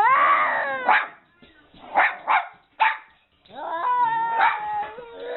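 A dog vocalizing: a strained rising cry, then a few short barks, then a drawn-out howling whine.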